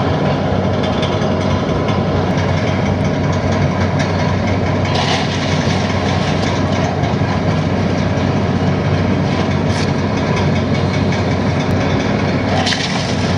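Heavy demolition machinery's diesel engine running steadily with a low rumble, with two brief higher-pitched bursts about five seconds in and near the end.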